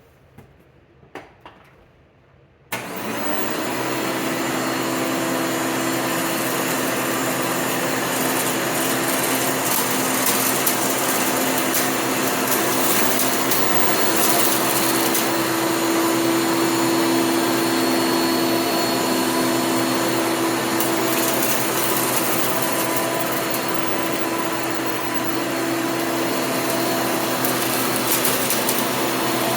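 A few light clicks, then a Hoover upright vacuum cleaner switches on about three seconds in and runs steadily, its motor giving a constant hum.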